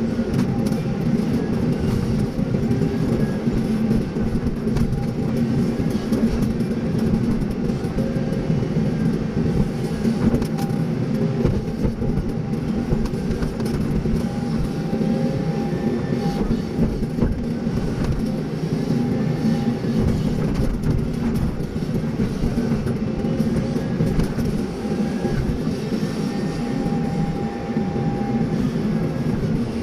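Hydraulic excavator working: its diesel engine runs steadily under load, with a faint whine that rises and falls every few seconds as the hydraulics move the arm.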